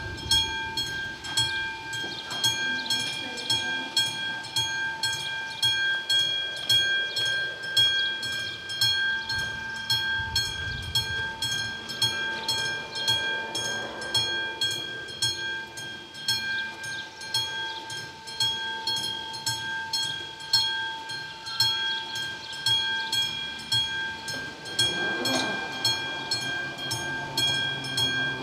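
Mechanical warning bell of an AŽD 71 level-crossing signal ringing continuously in rapid even strokes, a sign that a train is approaching. Near the end a low motor hum joins it as the barrier arms begin to lower.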